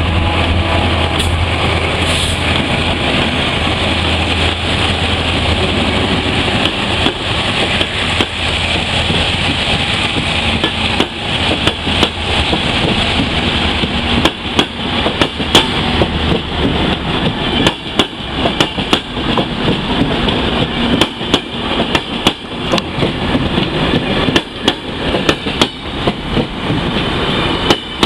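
TCDD diesel-electric locomotive running as it passes close, its low engine drone fading over the first several seconds. Then passenger coaches roll past with a steady rush of wheel noise and irregular clicks and knocks from the wheels on the rails, growing more frequent in the second half.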